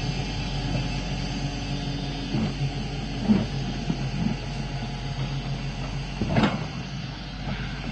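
Excavator diesel engine running steadily, with a couple of short clunks, one about three seconds in and another near six and a half seconds.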